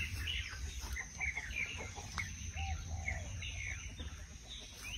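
Birds chirping and calling in quick, scattered short notes over a steady low rumble.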